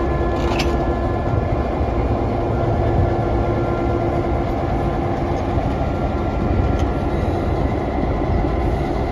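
EMD GP9 diesel-electric locomotive's 16-cylinder diesel engine idling steadily while it is turned on a turntable, a low rumble with a steady hum above it and a few faint clicks.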